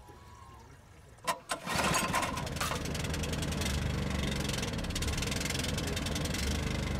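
A small deck engine on a river shrimp-fishing boat starting up. After a couple of clicks about a second in, it catches and runs with a fast, even beat, loudest just after starting and then settling to a steady run.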